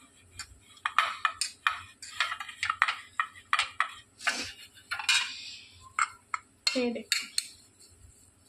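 Fingers rubbing oil over aluminium idli-stand plates: a run of short, light scrapes and taps on the thin metal, a few a second.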